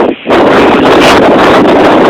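Strong wind blasting the phone's microphone: a loud, steady rush that sets in a fraction of a second in.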